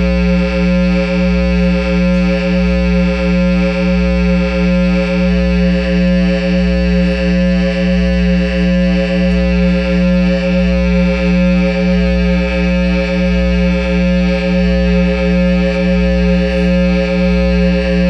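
Loud, steady electronic drone from a Line 6 amp head through a Peavey speaker cabinet: a sustained buzzing tone with a deep bass throb pulsing about twice a second.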